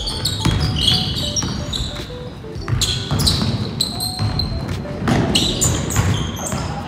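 Basketball play on a hardwood gym court: rubber-soled sneakers squealing on the floor in quick, repeated squeaks, mixed with the thuds of the ball bouncing and footfalls.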